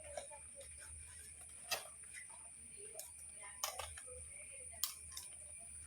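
Four or so sharp clicks or taps spaced a second or more apart, with faint voices in the background.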